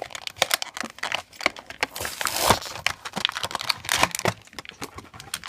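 A card-backed plastic blister pack of toy figures being torn open by hand: crinkling, crackling plastic with many sharp clicks, and a louder ripping stretch a little past two seconds in.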